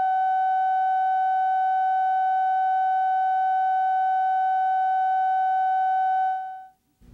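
Steady line-up test tone, a single high beep held at one pitch, sounding under a countdown slate before a TV spot; it fades out about six and a half seconds in.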